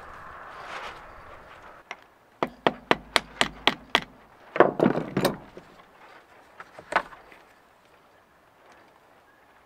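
Hand tools tapping and knocking on the metal-covered bench and the CV joint: a quick run of sharp taps, about four a second, then a cluster of heavier knocks about halfway through and a single knock a couple of seconds later.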